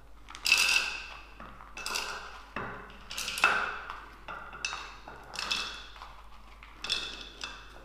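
Chopped dry fruits and nuts clattering against plastic bowls as they are scooped and dropped by hand, a string of sharp little clatters with brief ringing.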